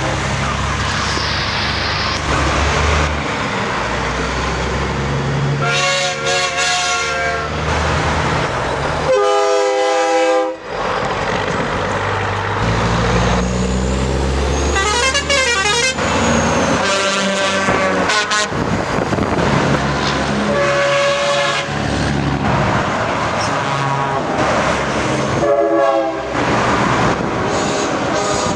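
Semi-truck air horns sounding in a series of separate blasts, about six spread several seconds apart, over the steady rumble of passing traffic.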